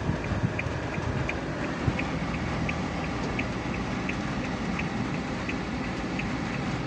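Rain pattering on a car's roof and windshield, heard from inside the closed cabin over low road and engine rumble. A regular light ticking, about three a second, runs through it.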